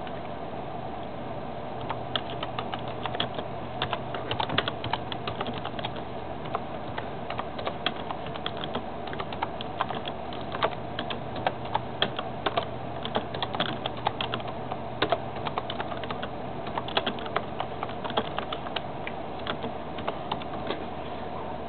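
Someone eating breakfast: irregular, quick crunches and clicks, starting about two seconds in, over a steady low hum.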